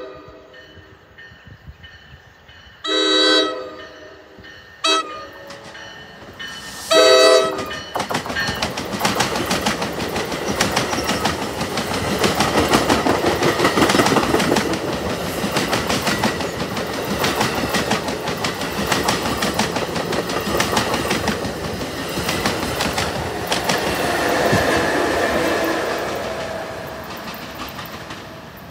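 NJ Transit Multilevel commuter train's horn sounds three blasts, two longer ones with a short one between, the last and loudest about seven seconds in: the end of a grade-crossing signal. The push-pull train then passes close by, its wheels clickety-clacking over the rails for about twenty seconds before the sound fades near the end.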